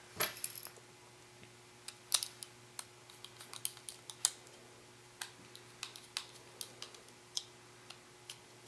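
Irregular light clicks and ticks of a small screwdriver driving a tiny screw back into a toy sonic screwdriver, left slightly loose.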